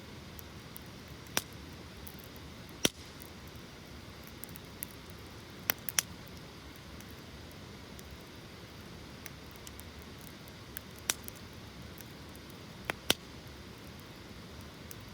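Wood campfire burning: a steady low rush of flames with irregular crackles and sharp pops of burning wood, about seven louder snaps scattered among faint ticks.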